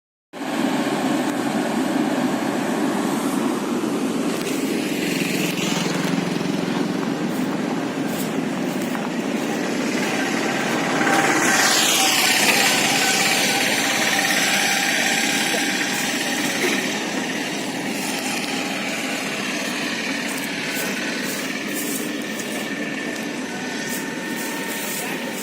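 XCMG horizontal directional drilling machine running steadily with a loud engine hum; a little before halfway it grows louder and a high whine drops sharply in pitch.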